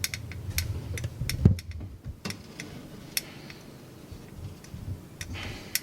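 Scattered light clicks and taps at an uneven pace, with one heavier knock about a second and a half in.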